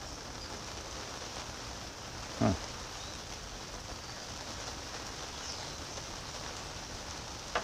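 Steady rain on the canopy tent overhead, an even hiss, with one short falling-pitched sound about two and a half seconds in.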